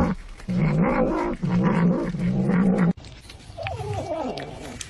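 A cat giving long, low, drawn-out yowls in three stretches, cut off abruptly about three seconds in. After the cut, a quieter cat meow falls in pitch.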